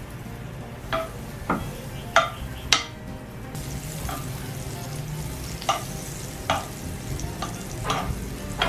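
Butter sizzling as it melts in a nonstick frying pan, while a metal spoon pushes it around, tapping and scraping against the pan about eight times.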